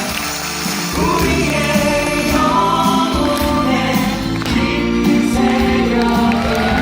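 Live musical-theatre song: singers' voices, several at once, over band accompaniment.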